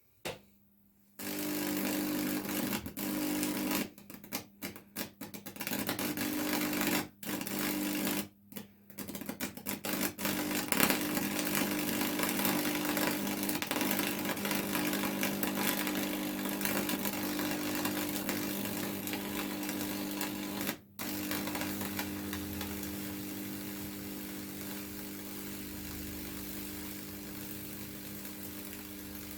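Lichtenberg fractal wood-burning rig running: a high-voltage transformer humming steadily while the current crackles and sizzles as it burns through the wood. It switches on about a second in and cuts out briefly several times, between about four and nine seconds and once again near twenty-one seconds.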